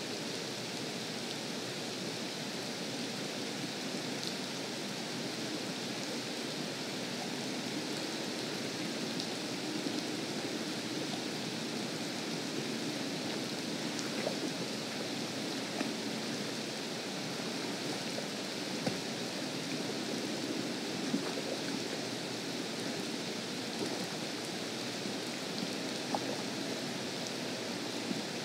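Steady rain falling on a lake's surface and the grass around it, with a few brief louder taps scattered through.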